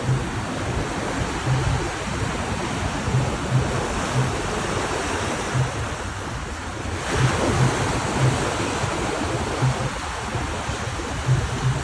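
Ocean waves washing and breaking in a steady roar of surf, with one wave swelling louder about seven seconds in. Wind buffets the microphone with irregular low thumps.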